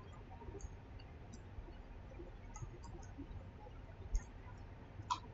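Faint, scattered computer mouse button clicks against quiet room tone, a few over the seconds and the clearest one about five seconds in: the mouse selecting line segments to trim in a CAD sketch.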